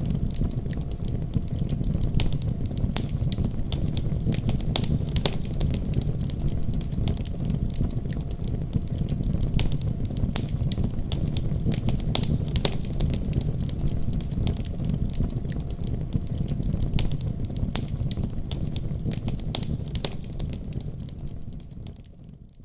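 Fire burning in a fireplace: a steady low rumble of flames with frequent sharp crackles and pops. It fades out over the last second or two.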